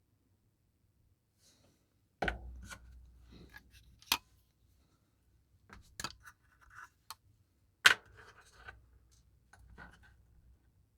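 Sharp little metal clicks and scraping from a watch bracelet clasp being handled and worked with small tools: about half a dozen separate clicks with rubbing between them, the loudest about eight seconds in.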